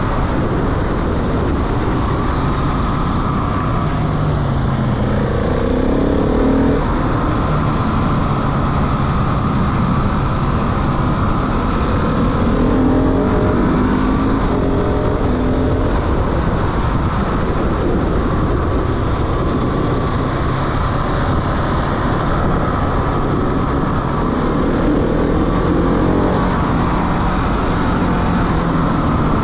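Motorcycle engine running on the move, its pitch rising and falling several times with the throttle, over steady wind noise on the microphone.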